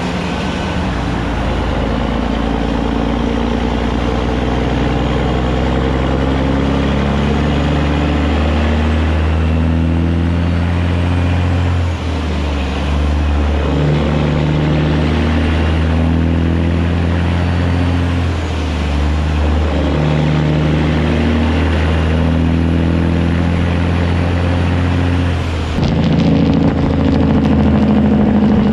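Diesel engine of a semi truck pulling a loaded flatbed, rising in pitch as it accelerates, with a short dip and drop in pitch at each gear shift, about every six seconds. Tyre and road-spray noise from the wet pavement runs underneath.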